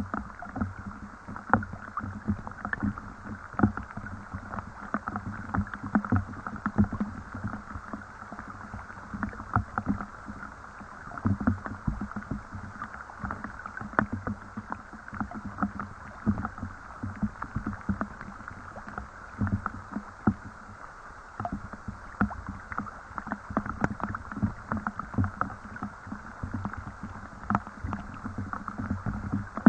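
Steady rain falling, a dense, irregular run of small drips and taps.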